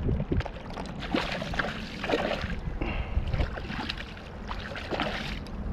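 A hooked fish splashing and thrashing at the surface in shallow water at the shoreline, in several irregular bursts, over a low rumble of wind on the microphone.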